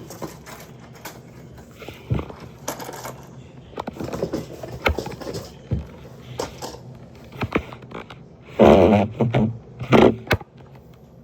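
Plastic toys and packaging being handled: scattered clicks, light knocks and scrapes, with a louder rustling burst near the end.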